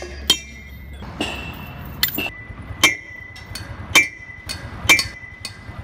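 A series of sharp metallic clinks, about seven strikes at uneven spacing, each followed by a brief high ring.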